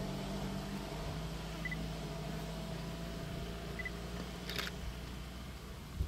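Low, steady hum of an idling vehicle engine, fading out near the end, with one sharp click about four and a half seconds in.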